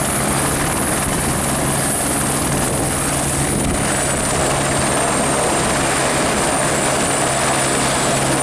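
Airbus AS350 B1 Écureuil helicopter running on the ground after landing, its Turbomeca Arriel turbine and main rotor turning at a steady loud level. A high turbine whine sits over the rotor noise and drops slightly in pitch a little past halfway through.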